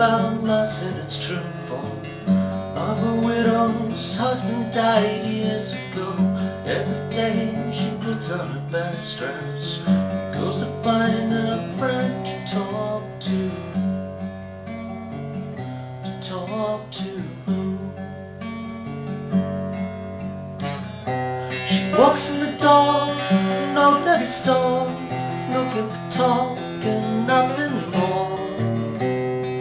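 Steel-string acoustic guitar strummed and picked, with a man singing along. The playing softens in the middle, then turns to louder strumming about two-thirds of the way in.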